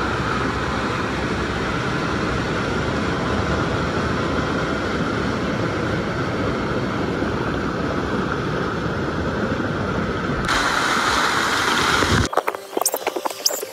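Water pouring down an artificial rock cascade into a lazy river, a steady rushing splash heard from right beside it. It gets louder and hissier about ten seconds in as the tube passes under the falling water, then cuts off suddenly near the end, leaving scattered clicks and small splashes.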